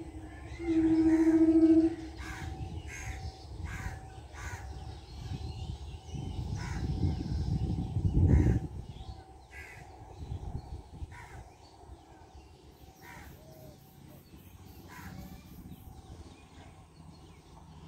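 Crows cawing over and over, a call every second or so. Near the start a train horn sounds one steady held note for about a second, and in the middle a gust of wind rumbles on the microphone, building up and cutting off suddenly.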